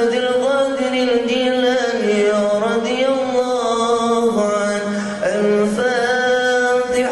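A man chanting solo in Arabic into a microphone, holding long drawn-out melodic notes that bend and slide between pitches, with a short breath break about five seconds in.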